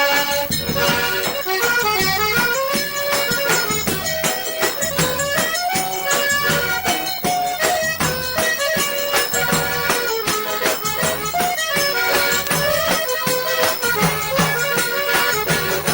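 Forró pé de serra on a sanfona (accordion): an instrumental stretch with the accordion's stepping melody and pulsing bass over a steady, quick percussion beat.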